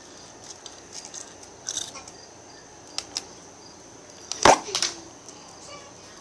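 Scattered light clicks and taps of small plastic toy figurines and the phone being handled on a hard tabletop, with one louder knock about four and a half seconds in.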